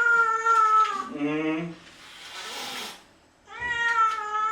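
Stray cat meowing in two long, drawn-out calls, the pitch sagging slightly through each; the first ends about a second in and the second begins about three and a half seconds in, with a short lower sound and a brief breathy noise between them.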